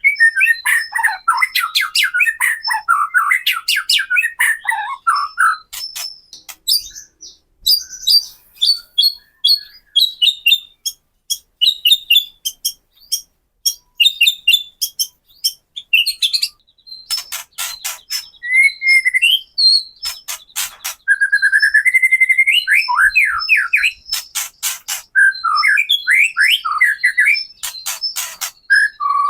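White-rumped shama (murai batu) singing: varied whistled and warbling phrases alternating with runs of dry, rapid crackling clicks, the harsh 'kretekan' notes.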